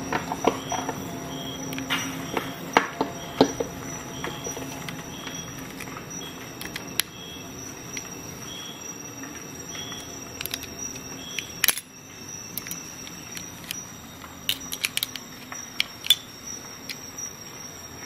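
Metal clicks and snaps from a Victorinox Rescue Tool's blades being worked in gloved hands, as its windscreen saw is handled and folded. There are scattered light clicks throughout, one sharp snap about two-thirds of the way through, and a quick run of clicks near the end.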